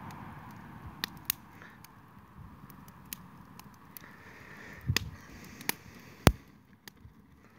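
Wood fire crackling, with sharp irregular pops; the loudest pop comes about six seconds in.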